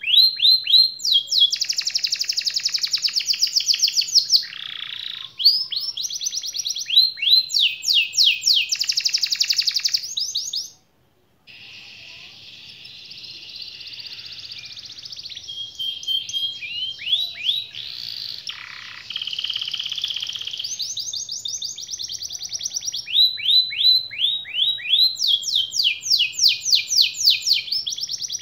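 Yellow domestic canary singing a long song of fast rolling trills and rapid chirping note series. The song breaks off completely for about half a second around eleven seconds in, then picks up again.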